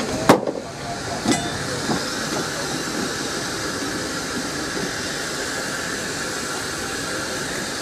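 A sharp metal clank near the start as railway points are thrown by hand, with a lighter knock about a second later. Then a steady hiss of steam from a standing steam locomotive.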